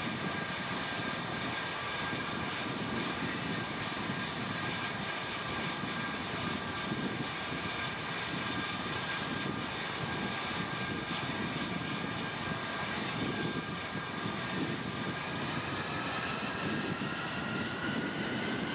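F-8 Crusader's turbojet running on the carrier catapult with a steady whine over a rumble. Near the end its pitch starts to rise as the engine is run up toward launch power.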